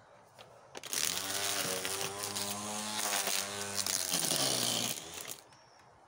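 Cordless electric string trimmer switched on about a second in, its motor running with a steady high buzz as the line spins through low weeds, then winding down with falling pitch about four seconds later.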